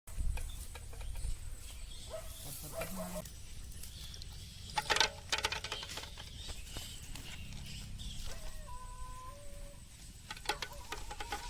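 Chickens clucking in the background, with a few short calls. A brief cluster of sharp clicks or knocks about five seconds in is the loudest sound.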